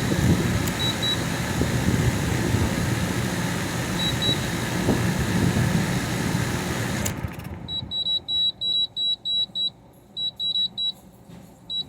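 Portable air conditioner running with a steady whooshing noise that cuts off abruptly about seven seconds in. Rapid high-pitched electronic beeps follow in quick bursts of several a second, with short gaps between the bursts.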